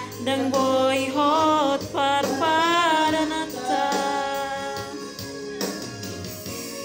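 A Batak song sung over electronic arranger-keyboard accompaniment. The melody bends and wavers in pitch in the first half, then settles into longer held notes.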